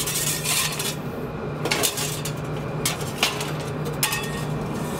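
Metal oven peel scraping and clanking against the hearth and the logs as wood is pushed to the back of a wood-fired oven's chamber, in a string of irregular knocks. A steady low hum runs underneath.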